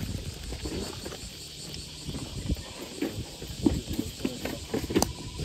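Gear being rummaged and handled in the back of a van: scattered, irregular knocks and light clatter, with a sharp click about five seconds in.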